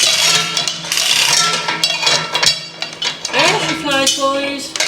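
Metal clattering and clinking, with many sharp knocks and some ringing, and a short pitched sound that bends up and down near the end.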